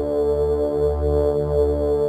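Synthesized electronic music generated in real time by a 64-kilobyte demo's built-in synthesizer: a held mid-range tone over a bass line whose notes change about twice a second.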